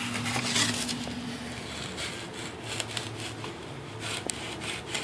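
Utility knife blade cutting through the foam of an RC flying wing: irregular scratchy rasps as the blade is drawn through the foam, with a few sharp clicks, over a faint steady hum in the first second or so.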